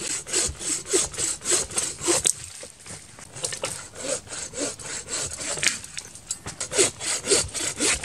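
Hand saw cutting through a tree trunk, about two to three rasping strokes a second, with a short pause a little before halfway.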